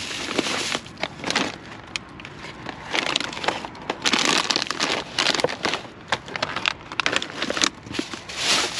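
Plastic bags rustling and crinkling as packaged goods are shifted around by hand, in irregular bursts with a few light knocks of packages being set down.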